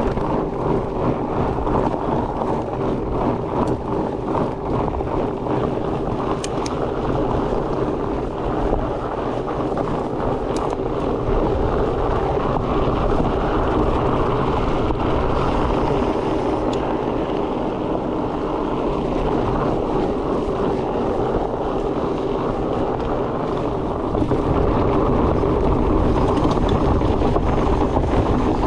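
Wind rushing over the microphone and a steady drone from fat bike tyres rolling on the trail during a ride. It gets a little louder about halfway through and again near the end.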